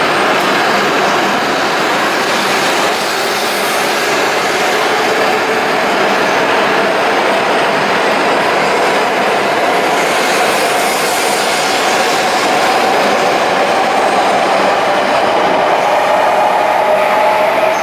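Hokuriku Shinkansen bullet train moving past the platform: a steady loud rush of motor and wheel noise. In the second half a motor whine rises in pitch as the train gathers speed.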